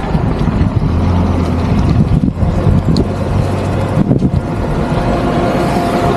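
A motor vehicle's engine running close by over a steady rumble of road noise, with a steady low hum from about a second in until about four seconds in.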